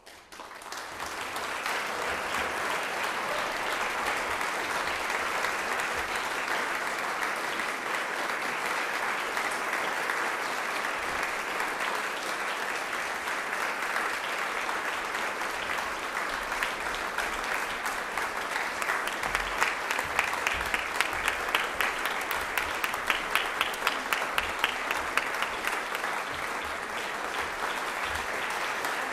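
Audience applause breaking out after silence and swelling within the first second or two, then holding steady. From about two-thirds of the way in, loud distinct claps stand out in a regular rhythm, about two a second.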